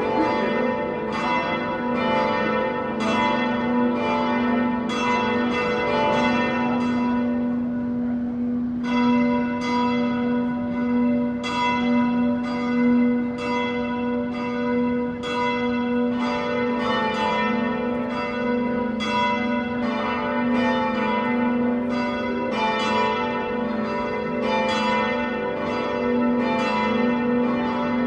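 Church bells ringing a continuous peal: strikes about twice a second over a steady hum from the ringing bells, with a short lull in the strikes about seven seconds in before they pick up again.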